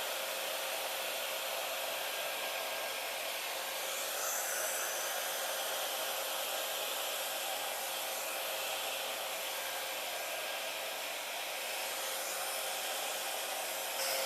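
Handheld hair dryer blowing continuously with a steady rush of air and a faint steady hum.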